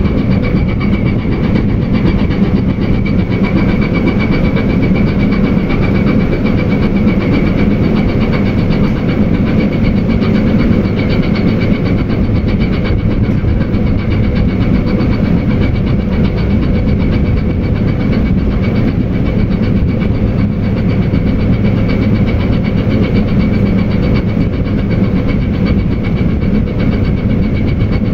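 Tugboat's diesel engines running hard as it works the cargo ship off the berth: a steady low rumble with a constant whine over it.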